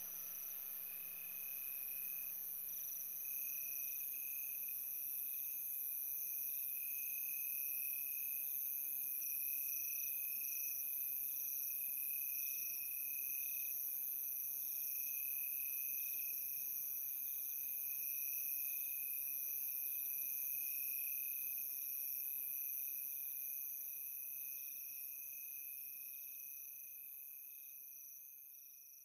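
A steady chorus of crickets and other insects at several high pitches, fading out over the last few seconds.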